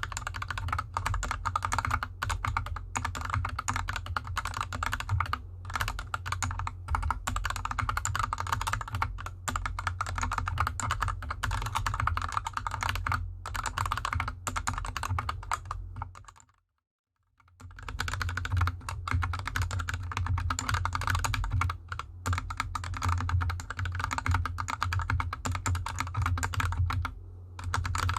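Continuous typing on a GK64X mechanical keyboard with lubed Gateron Yellow linear switches and DSA keycaps, dense irregular keystroke clacks. The typing is first heard with felt fabric under the keyboard; it cuts out about sixteen seconds in, then resumes with the keyboard on a desk mat.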